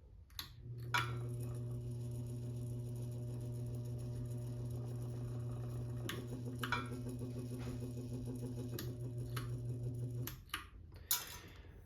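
Ceiling fan motor of a 52-inch Supreme Mark III running with a steady electrical hum. It starts about a second in and stops near the end, with a few sharp clicks over it.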